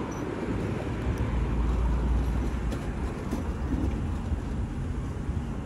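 Boeing 787 jet engines giving a low, steady rumble on final approach, swelling slightly about a second and a half in.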